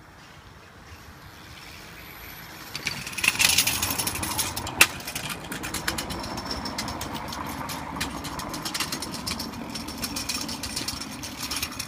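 Wheels of a child's BMX bike and a kick scooter rolling over brick paving: a continuous rattle with many sharp clicks, growing louder about three seconds in, with one loud click near five seconds.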